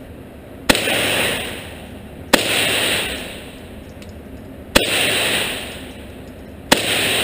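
Four pistol shots fired at a slow, uneven pace, roughly two seconds apart. Each sharp crack is followed by a long, loud echo that fades over about a second, typical of an indoor range.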